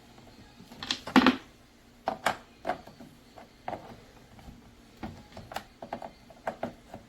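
Irregular clicks and knocks from something being handled: a dozen or so sharp taps with uneven gaps, the loudest cluster about a second in.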